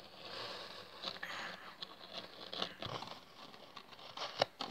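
Plastic toy horse figurines pushed and tapped across loose granular arena bedding: a rustling, scraping patter with scattered small clicks as the horses are made to trot.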